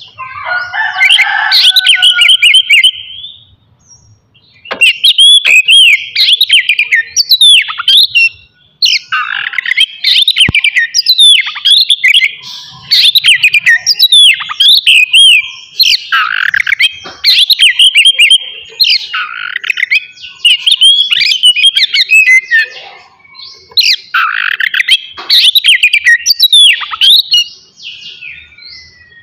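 Oriental magpie-robin (kacer) singing loudly in long strings of rapid, varied whistled phrases full of quick pitch sweeps, with brief pauses about four and nine seconds in.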